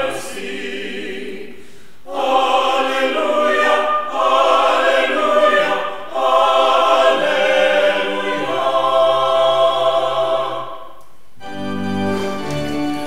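Congregation and choir singing a hymn with organ accompaniment, in phrases with short breaks about two and six seconds in. Near the end the singing gives way to fuller sustained organ chords.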